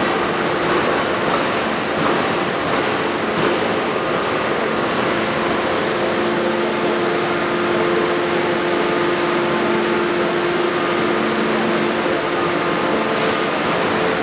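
Steady hum and hiss of a fully hydraulic die forging hammer's hydraulic system running, several steady tones over an even noise, with a couple of faint knocks.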